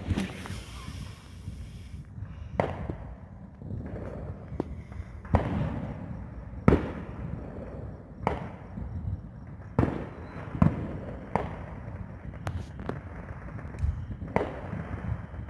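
Aerial fireworks going off: a series of sharp bangs, about a dozen, spaced irregularly one to two seconds apart.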